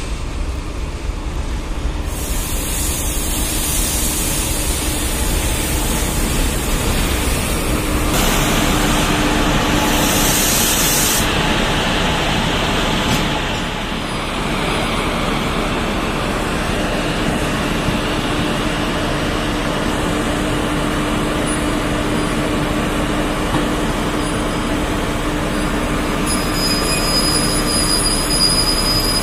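Indian Railways WAG-7 electric locomotive hauling a freight train along the line: a loud, steady rumble of wheels on rail, with a constant hum running through it from about a third of the way in.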